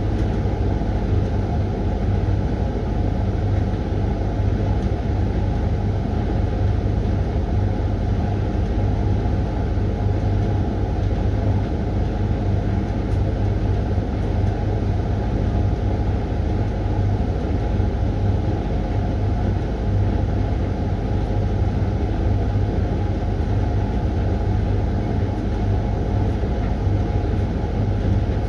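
Hoover washing machine running near the end of its 20-minute Refresh cycle, a loud, steady low hum that keeps an even level throughout. It came on suddenly from quiet just before.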